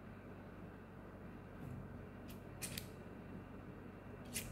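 Faint clicks of a retractable fountain pen's push-button mechanism being worked by hand, a few scattered clicks with a close pair near the middle and another near the end.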